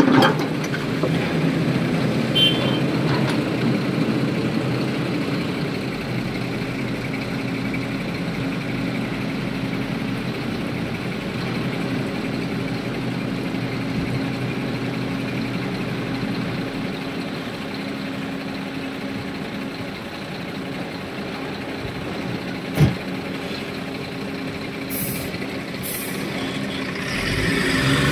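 Heavy diesel engine running steadily, with a single sharp knock a little past the middle and two short hisses near the end.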